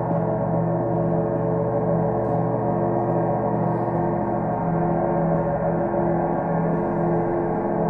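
Gongs ringing in a sustained wash of many overlapping steady tones, with a slow pulsing beat in the low notes and no single strike standing out.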